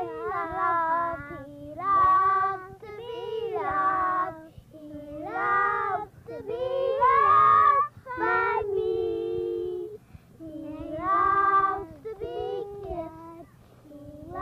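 Three children singing a song together, in long held phrases with short breaks between them.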